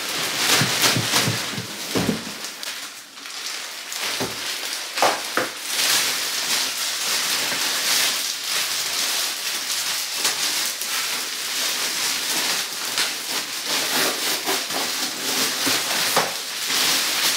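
Plastic packaging bag crinkling and rustling continuously as it is pulled off a folded stroller and the foam wrap is handled, with a few knocks in the first five seconds.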